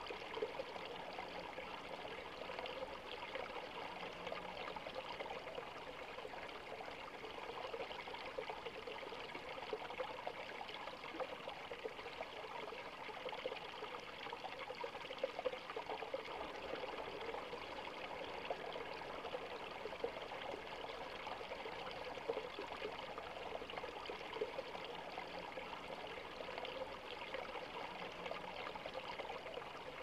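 Water pouring in a thin stream from a pipe spout and splashing onto rocks into a shallow stream: a steady splashing and trickling.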